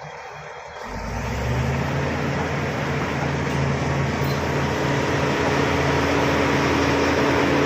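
Bulldozer's diesel engine running, growing much louder about a second in, then holding a steady, deep hum.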